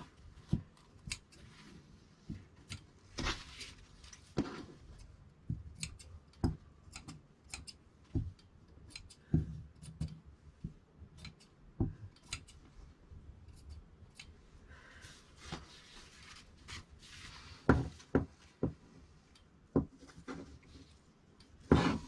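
Large tailor's shears snipping through cloth, a string of irregular sharp blade clicks, with soft rustling of fabric as the pieces are handled.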